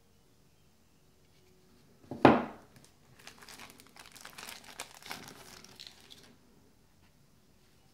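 A sudden loud noise about two seconds in, then thin plastic crinkling for about three seconds as a smartphone is handled in and pulled out of its clear plastic bag.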